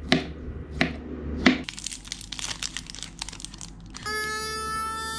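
Three sharp strikes of a kitchen knife cutting through avocado onto a plastic cutting board, then about two seconds of irregular crackling. About four seconds in, a small battery-powered portable blender motor starts with a steady whine.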